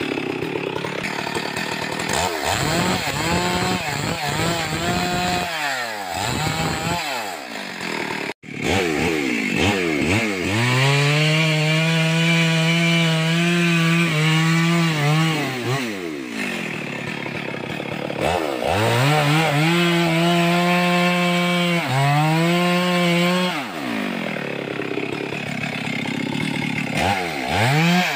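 Two-stroke chainsaw cutting wood: the engine revs up to full throttle and holds there for several seconds at a time through each cut, then drops back toward idle between cuts, about three times. The sound cuts out for an instant about eight seconds in.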